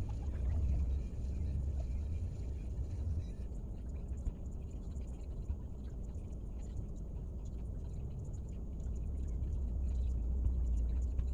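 Low steady rumble heard from inside a car's cabin.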